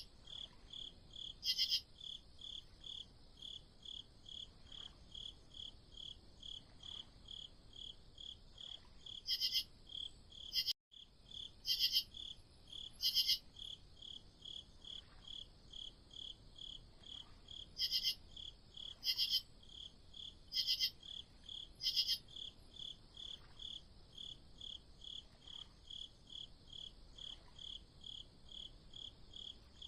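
Crickets chirping in a steady rhythm of about two chirps a second, with louder, shriller chirps breaking in every few seconds. The sound cuts out for a split second about eleven seconds in.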